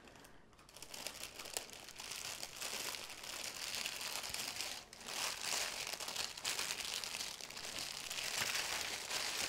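Clear plastic packaging bag crinkling and rustling as hands work a strip of small bags of diamond-painting drills out of it, with a short lull about halfway through.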